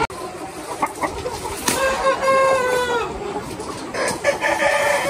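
A flock of chickens clucking, with a rooster crowing one long, slightly falling crow about two seconds in and another rooster beginning a crow near the end.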